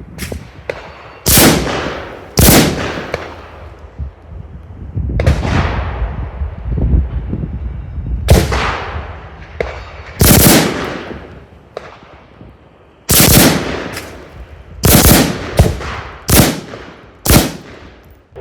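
Carbine rifle firing doubles: about nine or ten sharp shots at uneven spacing, each trailing off in a short echo. Fainter shots are heard between them.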